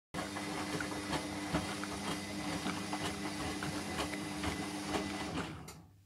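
Hotpoint washing machine drum turning in a deep rinse: wet laundry and sudsy water slosh and splash against the door glass over the steady hum of the motor. The drum stops and the sound dies away about five and a half seconds in.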